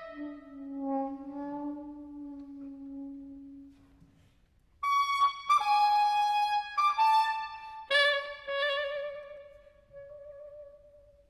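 Soprano saxophone playing solo: a soft low held note that fades out, a short pause, then loud, sharply attacked high notes, ending on a wavering held note that dies away.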